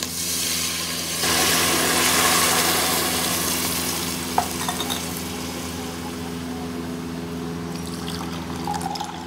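Water poured from a steel glass into a hot aluminium pot of half-cooked chicken and potatoes, splashing and hissing. The noise is strongest for a couple of seconds after the pour starts, then eases to a quieter, steady bubbling.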